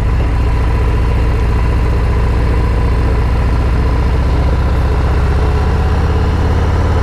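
Steady car engine and road rumble heard from inside the cabin of a moving car, with a faint constant whine.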